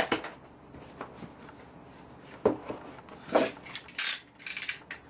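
Cardboard boxes handled on a workbench: a few separate knocks and scrapes, then near the end a quick run of rasping strokes as a utility knife cuts into a cardboard box.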